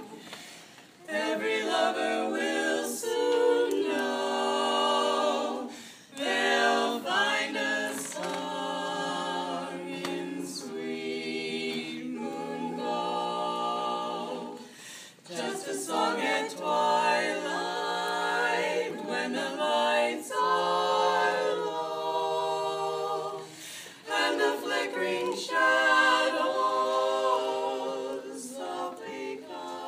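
Female vocal quartet singing a cappella in harmony, in long phrases with brief pauses between them.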